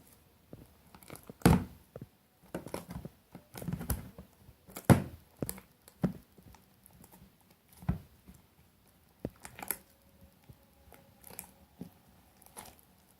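Sticky homemade glue slime being kneaded and pulled by hand, giving irregular wet smacks and sharp pops as it comes away from the fingers. The slime is still sticky, not yet fully set.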